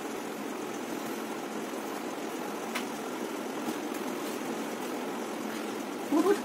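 Steady background hum, like a running machine, with one faint click nearly three seconds in and a brief rising pitched sound just before the end.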